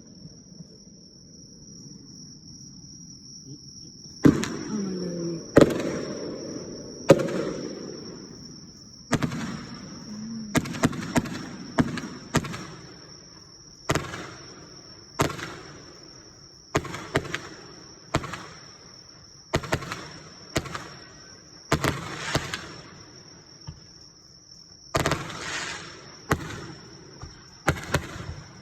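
Aerial fireworks shells bursting over and over, starting about four seconds in. Each is a sharp bang followed by a rumbling echo, coming roughly every second and sometimes in quick clusters, with a crackling burst near the end.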